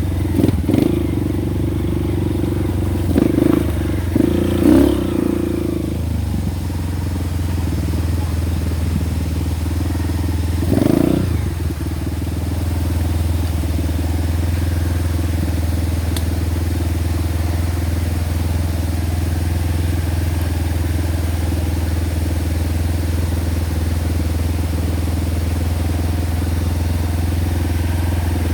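Honda Win motorcycle engine running steadily as the bike is ridden, picking up briefly a few times in the first few seconds and again about eleven seconds in.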